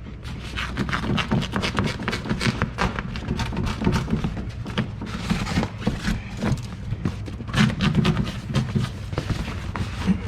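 Continuous rapid crackling and rustling, many small clicks in a row, as the foam water shield is peeled away from the inner door panel.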